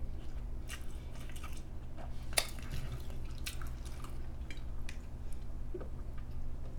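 Soft mouth sounds and swallowing as a person drinks from a plastic soda bottle, with small clicks and handling noises from the bottle and a sharper click a couple of seconds in, over a steady low room hum.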